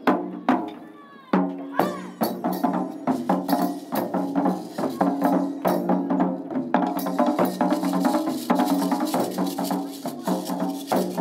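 Taiko drums struck with wooden bachi sticks by an ensemble in a fast, driving rhythm. The strikes thin out briefly about a second in, then build back into dense, continuous playing.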